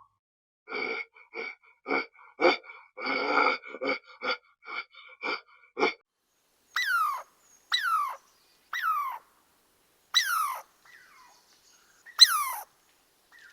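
Animal calls: about a dozen short calls in quick succession over the first six seconds, then five separate calls about a second apart, each falling sharply in pitch.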